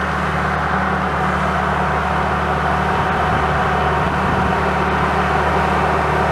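John Deere 650H crawler dozer's diesel engine running steadily as it pushes dirt.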